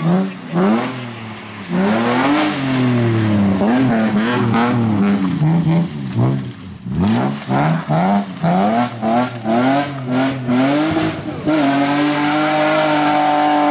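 BMW E30 rally car engine revving hard on a gravel stage, its pitch swinging up and down with throttle and gear changes. From about seven to ten seconds in the throttle is snapped on and off in quick stabs, and near the end the engine holds a steady high rev as the car pulls away.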